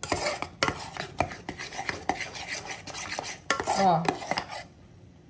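Metal spoon stirring a thickened lemon glaze in a small aluminium saucepan, clinking and scraping against the pan's sides and bottom several times a second, stopping about three and a half seconds in.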